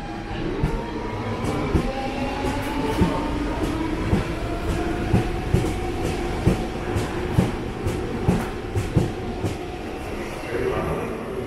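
DSB S-tog SA-class electric suburban train arriving at a platform and passing close by: wheels clicking over rail joints over a steady rumble, with the electric drive's whine slowly falling in pitch as it slows.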